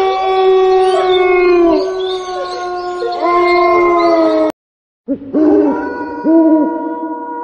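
A spooky sound-effect track. First comes a layer of long, drawn-out howls overlapping one another, with swooping starts. This cuts off abruptly about four and a half seconds in. After half a second of silence, a series of owl hoots follows at about one a second.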